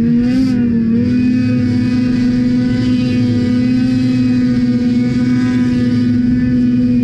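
Ski-Doo 600 RS snowmobile's two-stroke twin engine held at high, steady revs while the sled skips across open water, heard loud from on board. The note wavers briefly in the first second, then holds at one constant pitch.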